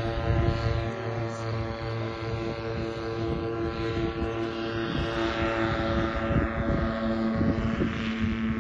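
Vittorazi Cosmos 300 two-stroke paramotor engine and propeller running steadily in flight, a continuous droning hum.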